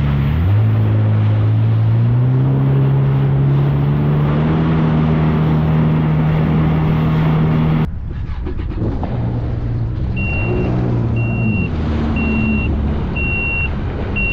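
Yamaha 1800 four-stroke jet ski engine running, its pitch climbing slowly as it speeds up. After an abrupt cut it runs slower, and from about two-thirds of the way in a high electronic beep sounds about once a second: a service-reminder alert that can be silenced with a console button.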